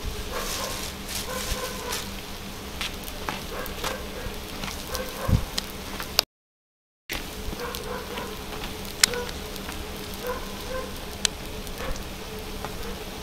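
Food sizzling and crackling as it roasts, with frequent sharp pops. The sound cuts out completely for about a second, six seconds in.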